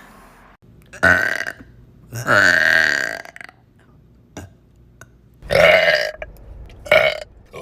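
A woman burping four times: a short burp about a second in, a longer one lasting about a second just after two seconds, another long one near six seconds, and a short one near the end.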